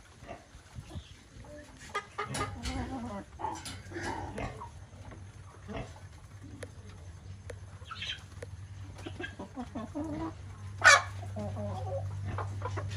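A flock of chickens clucking and pecking at feed on a dirt floor, with scattered short calls and clicks. One short, sharp, loud sound comes about eleven seconds in.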